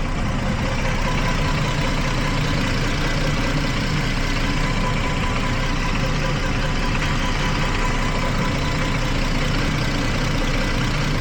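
2012 Jeep Liberty V6 engine idling steadily with a misfire on cylinders 1 and 5. The mechanic traces the misfire to a weak ignition coil boot that lets the spark arc through after the engine bay got wet.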